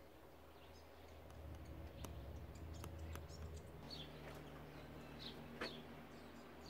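Faint outdoor ambience: a few short, high bird chirps from about four seconds in, over a low steady hum, with a couple of faint clicks earlier.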